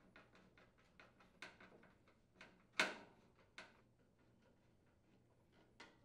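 Faint small clicks and ticks of a Phillips screwdriver turning a screw into the range's sheet-metal front bracket, with a sharper click a little under three seconds in.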